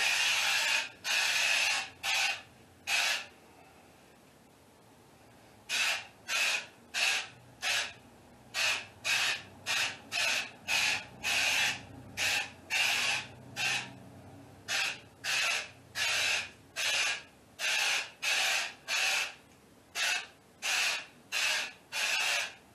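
Aerosol can of spray-on wall texture spraying in short hissing bursts, about one or two a second, with one pause of about two seconds after the first four; the texture spatters onto the drywall to match the old ceiling texture.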